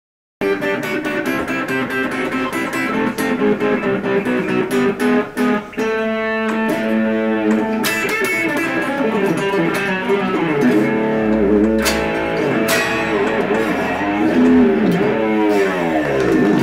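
Electric guitar instrumental, starting about half a second in: fast runs of notes at first, then long held lead notes that bend and waver in pitch.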